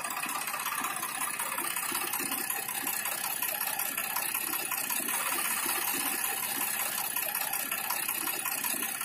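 Small electric gear motor of a scale-model tractor running steadily, its pinion driving a plastic axle gear with a continuous whir and gear rattle.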